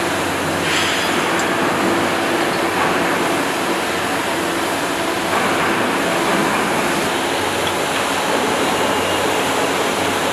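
Steady machinery noise: a constant hiss with a low hum under it, unchanging throughout.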